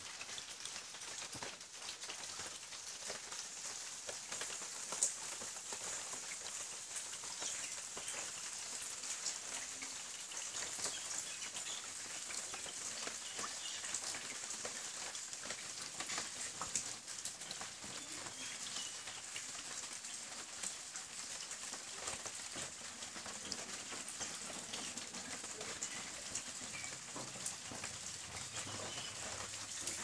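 Rain falling on a koi pond's water: a steady patter of many small drops hitting the surface, with one slightly louder drop about five seconds in.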